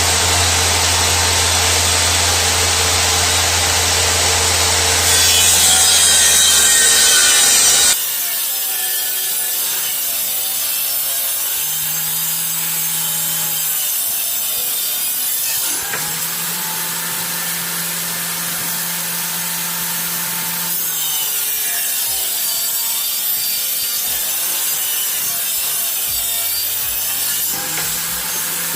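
Wood being sawn. For about the first eight seconds a steady motor hum runs under the cutting, and it cuts off suddenly.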